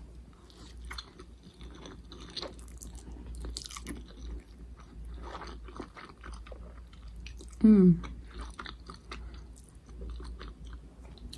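Close-up chewing and biting of Samyang spicy hot chicken stir-fried noodles, with many small wet mouth clicks and crunches. About three quarters through there is a brief vocal sound falling in pitch.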